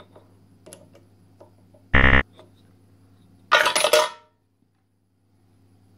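A steady low hum, broken about two seconds in by a short, loud buzz. About a second and a half later comes a loud metallic clatter at a mini lathe's three-jaw chuck and chuck key, lasting under a second.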